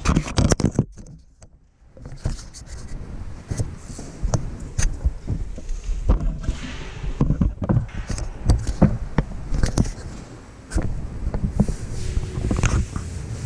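Irregular knocks, clicks and scrapes of curved corrugated steel grain-bin sheets being handled, with boots stepping on a concrete floor, over a low steady rumble. A longer scrape comes about six seconds in.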